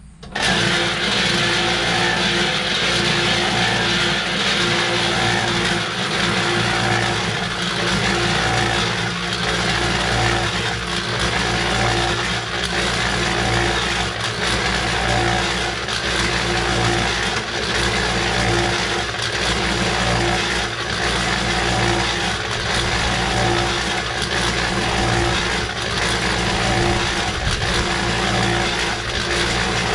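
Small electric cement mixer switched on, its motor and drum drive starting abruptly and then running steadily with a hum and a gently pulsing whine, while dry dirt is tipped into the turning drum and tumbles inside.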